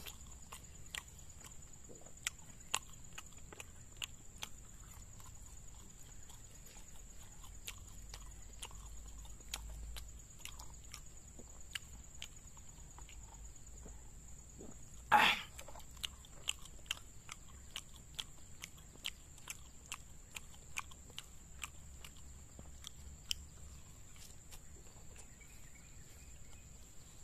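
Close-up eating sounds: wet chewing and sharp mouth clicks while someone eats mung-bean martabak by hand. About halfway through there is one louder slurp through a drinking straw.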